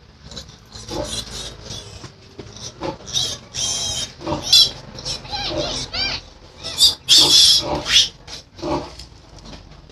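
Piglets squealing in a series of shrill, wavering bursts as they are picked up and carried by hand. The loudest squeals come about three to four seconds in and again around seven to eight seconds in.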